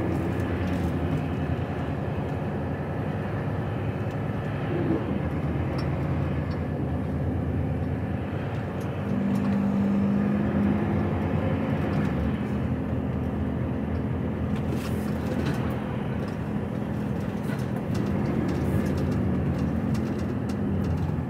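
Diesel engine of a heavy goods truck running under way, heard from inside the cab with steady road noise. The engine note shifts about five seconds in and grows stronger about nine seconds in.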